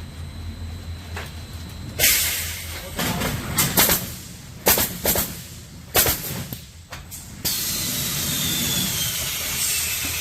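Woodpecker Junior pallet nailing machine running: a low hum, then a run of sharp bangs and clatters with hissing. About three-quarters through, a steady loud hiss sets in with a slowly falling whine.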